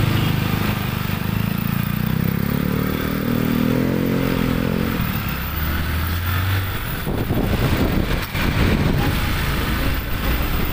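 Motorcycle engine pulling away from a stop: its note rises through the first four seconds, falls back, and holds a steady low pitch for a moment. After that a rushing noise of wind and road takes over as the bike rides on.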